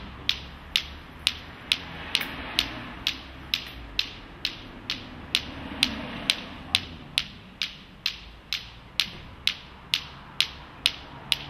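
Clacker toy (Klick-Klack), two hard plastic balls on a string swung so they knock together, clacking steadily at about two clacks a second.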